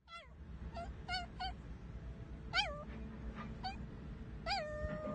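A small dog giving a string of short, high-pitched whining cries, each dropping in pitch, about seven in all; the last, near the end, is drawn out and slides down.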